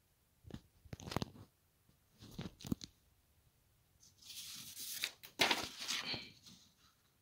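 Sheets of paper rustling and crackling as they are handled, in three bursts, the longest and loudest about four to six seconds in.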